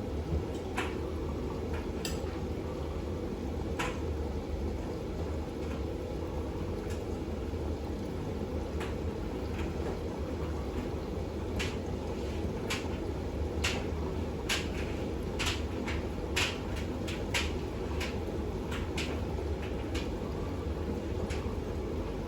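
Bosch WAX32GH1 front-loading washing machine in its final rinse: a steady low hum from the drum turning through the rinse water, with irregular sharp clicks and knocks that come thickest in the middle of the stretch.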